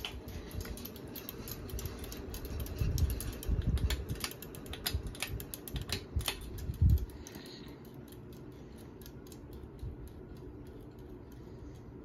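Hampton Bay Genoa ceiling fan running, with a run of sharp irregular clicks and a few low thumps in the first half. After about seven seconds it settles to a steady faint hum with light, evenly spaced ticking.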